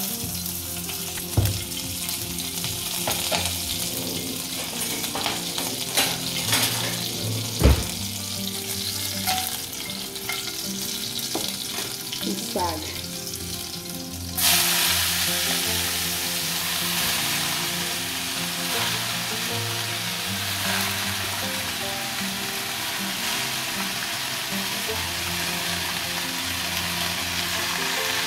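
Fenugreek seeds and slit green chillies frying in hot oil in a pan: a light sizzle with a few sharp clinks of a utensil. About halfway through, the sizzle suddenly gets much louder as more goes into the hot oil, and it stays steady.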